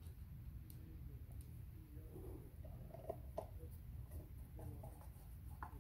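Faint scraping and a few light clicks of a hand screwdriver driving a lid screw into a PVC junction box, over a low steady hum.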